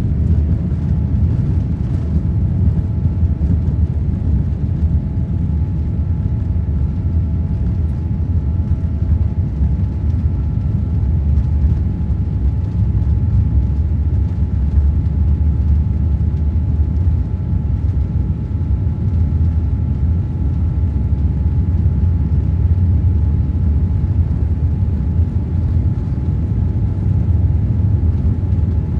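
Steady low rumble of a jet airliner heard from inside the cabin as it rolls along the runway, with a faint steady whine above it.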